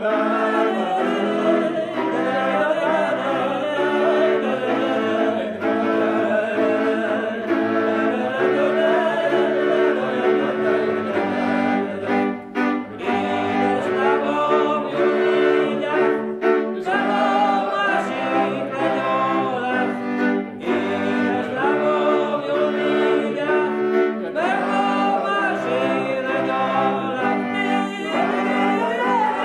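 A man singing a Hungarian folk song from Mezőség, accompanied by a string band: fiddle melody over the kontra's rhythmic chords.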